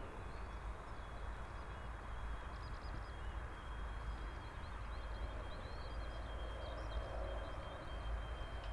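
Quiet open-air ambience: a steady low rumble with small birds chirping, and a faint steady high-pitched whine throughout.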